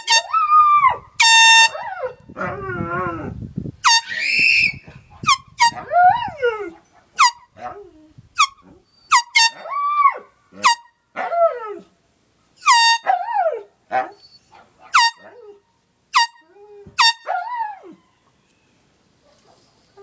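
Repeated short toots from a handheld aerosol air horn, each answered by a dog howling in rising and falling cries.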